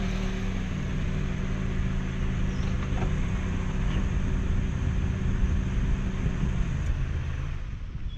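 Car engine running with a steady low drone that fades out near the end.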